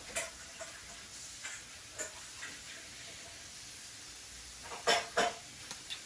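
Small pet parrots giving a few soft, short chirps and clicks, with two louder sharp squeaks close together near the end.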